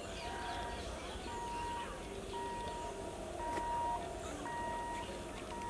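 Electronic level-crossing warning beeper sounding a steady high beep, on and off about once a second, over a faint low rumble.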